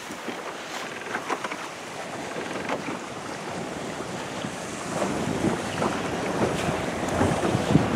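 Wind buffeting the microphone over choppy water, with waves splashing and rushing; it grows louder about five seconds in.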